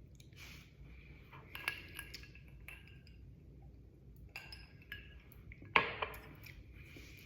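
Faint clinks of glassware being handled: a few light knocks, each ringing briefly with a glassy tone, the loudest about six seconds in.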